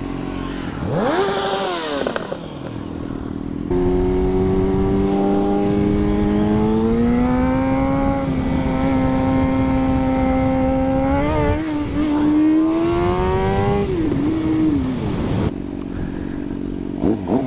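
Sportbike engine on a ride: a quick rev up and back down about a second in, then steady throttle with the pitch climbing slowly as the bike gathers speed, before easing off and dropping in pitch near the end.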